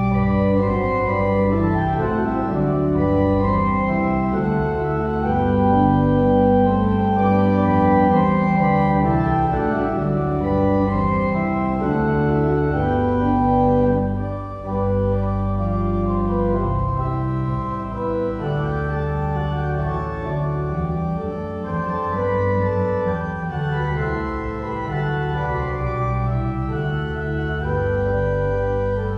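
Organ music playing held chords that change over a sustained bass line, with a brief dip in level about halfway through.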